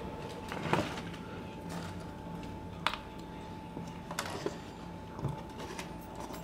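A few light knocks and clicks from tools and starter parts being handled on a wooden workbench, over a steady faint hum.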